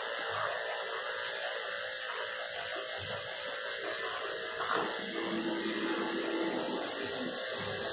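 Corded electric dog clippers running steadily with a constant buzzing whine as they clip a cocker spaniel's coat.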